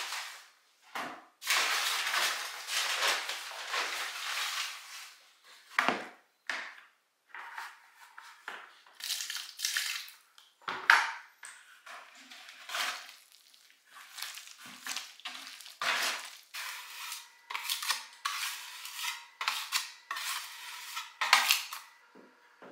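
Irregular scraping, rustling and knocking of a scoop and hands against plastic buckets and a paper sack as plasterboard joint compound is scooped out and mixed. A sharp knock about 11 seconds in is the loudest.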